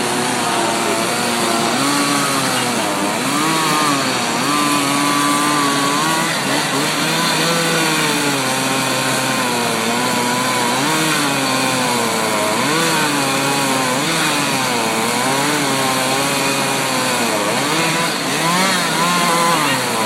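Two-stroke chainsaw running and cutting wood, its engine pitch dipping and rising over and over as the load changes.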